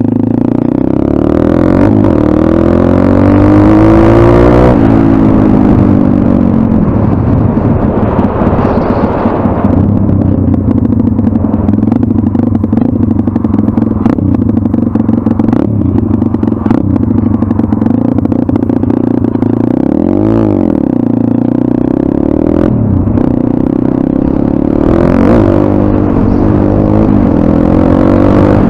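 Pit bike's small single-cylinder four-stroke engine running under way. It revs up, rising in pitch over the first few seconds, drops sharply at a gear change, then holds a fairly steady pace, with a brief dip and rise in revs about two-thirds of the way through.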